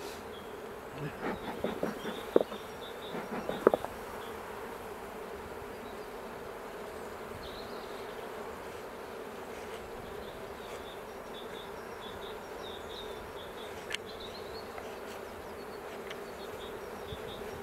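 Honeybees buzzing steadily over an open hive, an even low hum. A few sharp knocks come between one and four seconds in, and a single click near the end.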